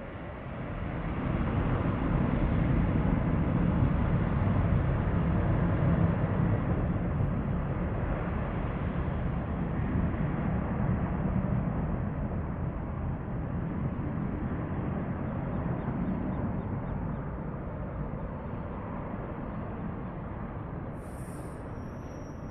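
Distant jet airliner's engines rumbling as it goes by, swelling about a second in and then slowly fading away.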